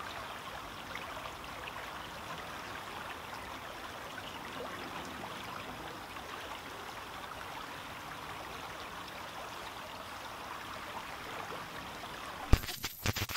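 Steady, even rush of a small stream flowing under a footbridge. About a second before the end a sharp click is followed by a brief crackling burst.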